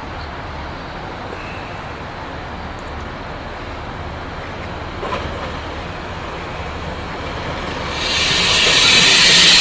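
Passenger train coming into the station: a low steady background, then from about eight seconds in the noise of the train's wheels on the rails swells quickly and is loudest at the end.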